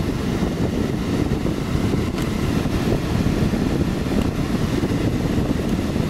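A window air conditioner running at close range: a steady low rush from its fan and compressor, with a couple of faint clicks. The compressor is working harder than normal in the enclosure and drawing more current than it should.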